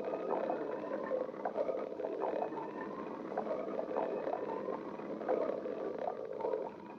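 A person's stomach growling: a steady gurgling rumble, with many short squeaks and bubbling pops running through it.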